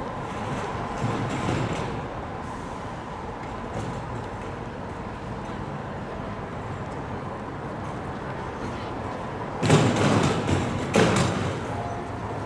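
Steady outdoor city background noise with faint voices and a distant traffic hum. About ten seconds in, two loud, short rushes of noise follow one another.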